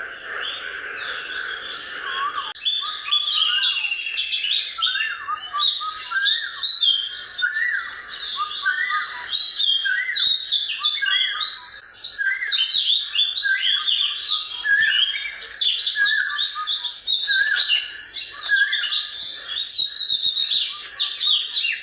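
Many small birds chirping and twittering, a dense chorus of short overlapping chirps that gets busier about two and a half seconds in, over a faint steady high tone.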